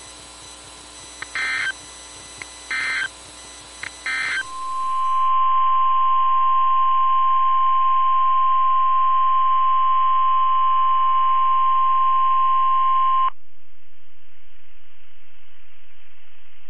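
NOAA Weather Radio weekly test alert: three short bursts of SAME digital header data about a second apart, then the 1050 Hz warning alarm tone, one steady loud tone held about nine seconds that cuts off suddenly, leaving faint radio hiss.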